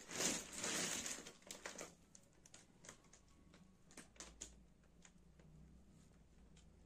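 Close handling noise: a brief rustle in the first second or so, then scattered light clicks and taps.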